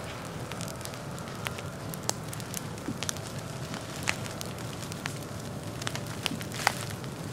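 Forest ground fire burning through dry leaf litter, crackling with scattered sharp pops over a steady hiss; the loudest pop comes near the end.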